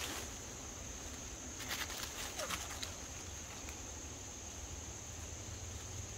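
Faint woodland ambience with a steady high hiss and a handful of light clicks and crackles about two seconds in.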